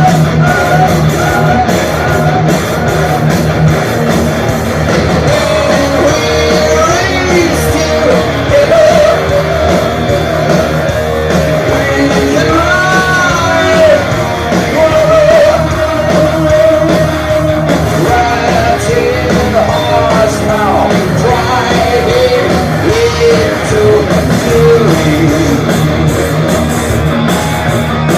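Heavy metal band playing live: distorted electric guitars, bass and drums under a high, yelled singing voice, loud and continuous.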